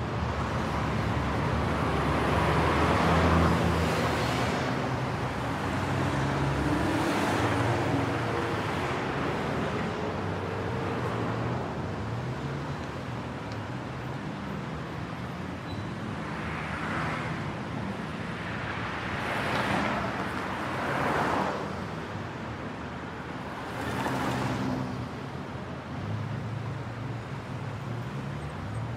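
Busy road traffic at an intersection: a steady rumble of engines and tyres, with several cars passing close one after another, each swelling up and fading away.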